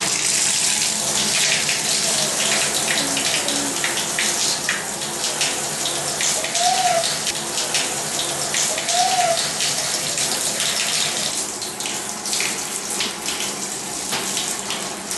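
Handheld shower sprayer running water onto a wet dog in a stainless steel grooming tub: a steady spray hiss with patter and splashing as the water hits fur and steel.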